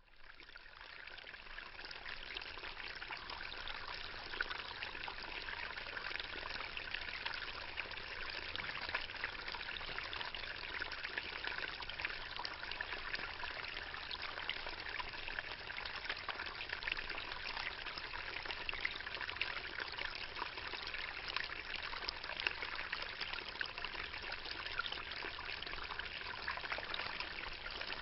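Water trickling and splashing steadily, a dense hiss full of tiny drips and splashes.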